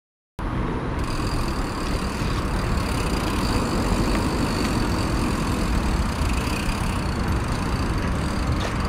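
Steady low rumble of wind on the camera's microphone and running noise from a bicycle being ridden along a paved path, starting abruptly just under half a second in.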